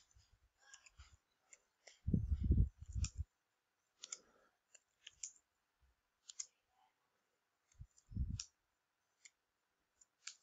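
Computer keyboard typing: irregular single keystroke clicks, with two louder low thuds, one about two seconds in and one near eight seconds.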